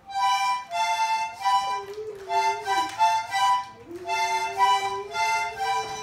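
A small toy accordion played in short, pulsing chords, with a dog howling along to it. The dog gives one howl about a second and a half in, then a longer one from about four seconds in that slides up at the start and drops away at the end.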